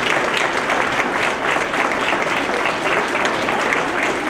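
Crowd applauding: many people clapping steadily and without a break.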